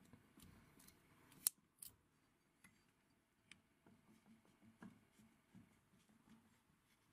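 Near silence broken by a few faint metallic clicks and taps, the sharpest about a second and a half in, from the toothed camshaft pulley being handled on the camshaft nose over its Woodruff key.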